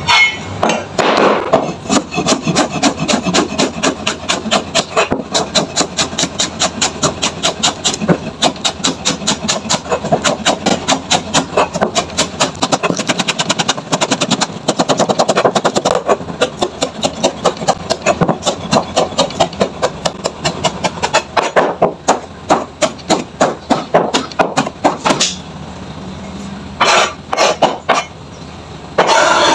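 Knife chopping vegetables on a wooden cutting board in rapid, regular strokes, several a second. It stops briefly near the end, then gives a few more cuts.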